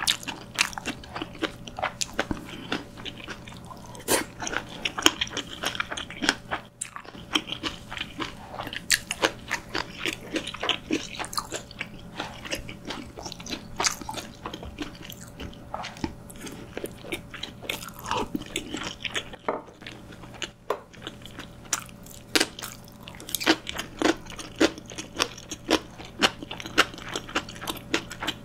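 Close-miked eating sounds: biting and chewing green onion kimchi, then a steamed dumpling, with many short, sharp crunches and wet mouth clicks at an irregular pace.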